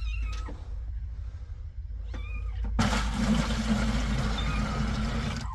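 A cat meows twice in short rising-and-falling calls. About three seconds in, water starts running steadily and stops suddenly at the end.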